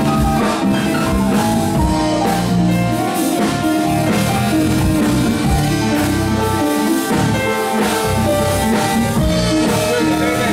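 Live funk band playing loud and steady: bass guitar, keyboards and a drum kit with percussion, heard from the audience in a small club.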